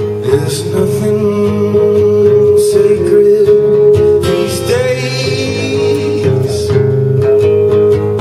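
Steel-string acoustic guitar strummed in a live song, the chords shifting every second or so.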